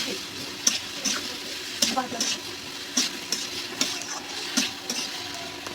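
Spatula scraping and stirring ivy gourd and paddy-straw mushrooms frying in oil in a karai (wok), over a steady sizzle. The scrapes come about twice a second.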